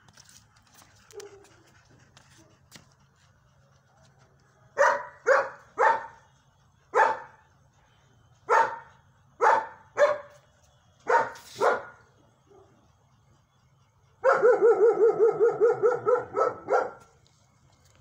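A dog barking: nine separate sharp barks over about seven seconds, then a fast run of short, higher yelping barks, about five a second, for a little under three seconds.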